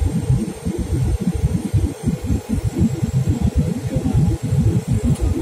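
Passenger aircraft cabin noise heard through a phone microphone: a loud, uneven low rumble with no distinct tones.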